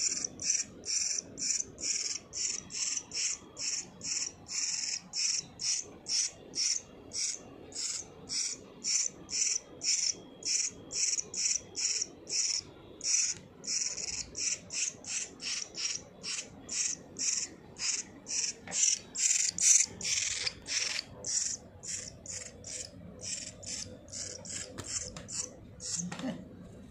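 A nestling bird giving harsh, rasping begging calls at about two a second, a hungry chick calling to be fed.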